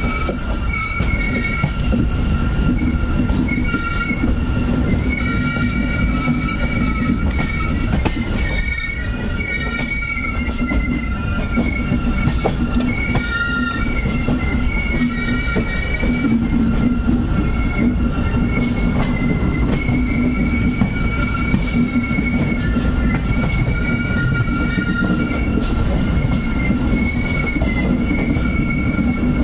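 Passenger train running at speed through a station yard, heard from an open coach door: a steady rumble of wheels on rail with rail-joint clatter and a high wheel squeal that keeps coming and going as the coaches take the curves and points.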